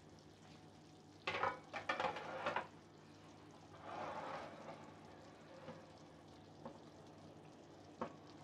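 A kitchen utensil stirring and scraping in a dish of food: a cluster of short scraping bursts about a second in, a softer stretch a little later, and a single sharp click near the end.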